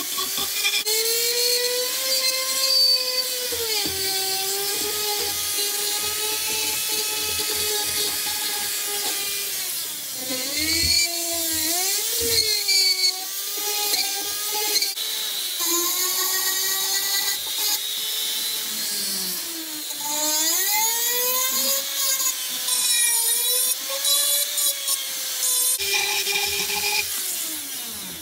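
Foredom flex-shaft rotary tool spinning a Saburrtooth carbide burr against catalpa wood: a motor whine over a gritty grinding hiss. The whine's pitch sags and recovers again and again as the burr cuts, and near the end it slides down as the motor slows.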